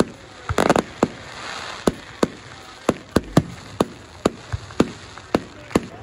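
Fireworks display: a dozen or more sharp bangs of bursting aerial shells, several close together about half a second in, with a spell of crackling about a second in.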